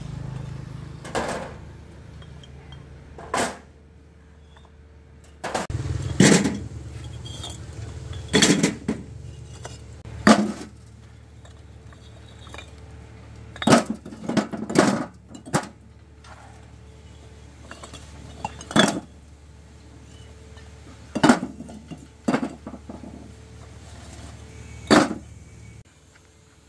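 A low steady motor hum, which stops for about two seconds near the start and then comes back, with sharp knocks and clinks every two or three seconds.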